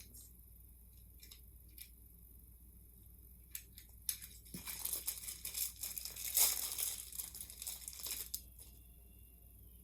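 Plastic packaging crinkling as it is handled and pulled open, a few light clicks at first, then a dense run of crinkling through the middle and latter part that dies away shortly before the end.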